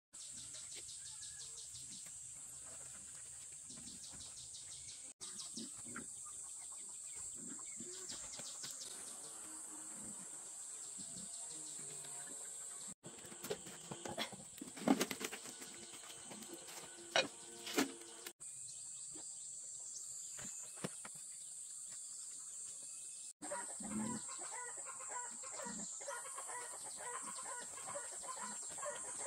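Chickens clucking, with scattered calls over a steady high-pitched hiss. The sound cuts off abruptly and changes several times, as short clips are joined.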